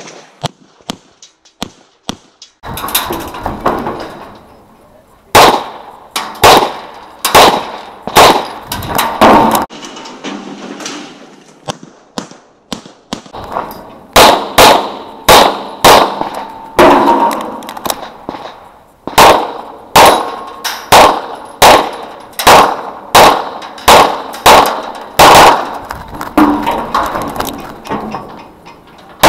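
A CZ Shadow 2 9 mm pistol fired in quick strings, about one or two shots a second, each shot sharp with a short ringing tail. There are pauses between strings, a longer one about ten seconds in.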